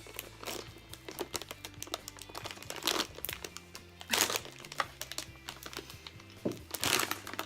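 A plastic bag of Mint M&M's being opened and handled, crinkling, with a few louder crackles about three, four and seven seconds in, over background music with a steady low bass line.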